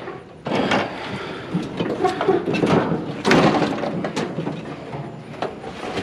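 Large metal barbecue grill being rolled and shoved onto a trailer: metal rattling and scraping, with loud bangs about half a second in and about three seconds in.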